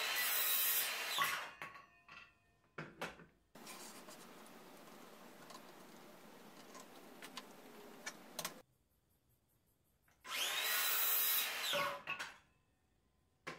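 Makita cordless circular saw crosscutting a small board twice, at the start and again about ten seconds in. Each time the motor whines up to speed, cuts for about a second and a half, then winds down.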